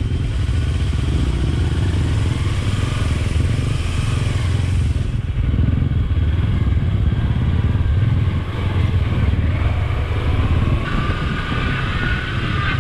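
Adventure motorcycle engine running steadily while riding along, with a continuous low rumble.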